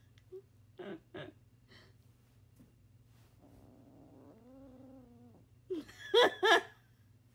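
Black kitten growling over a toy mouse it is chewing, a possessive growl. Two short growls come about a second in, a drawn-out wavering growl midway, and two loud yowling growls just after six seconds.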